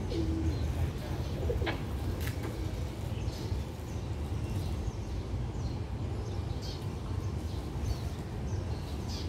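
Birds chirping now and then, with a brief low cooing call right at the start, over a steady low background rumble.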